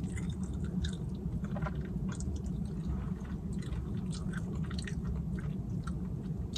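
Close-up chewing of a chicken wing: irregular wet smacks and small mouth clicks, several a second, over a steady low hum.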